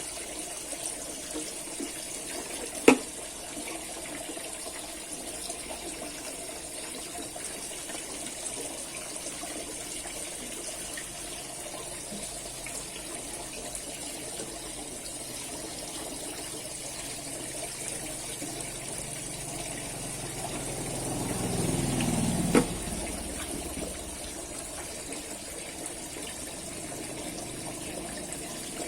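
Steady rushing water. About three seconds in there is one sharp click, and around twenty seconds in a low rumble swells for a few seconds and ends in a knock.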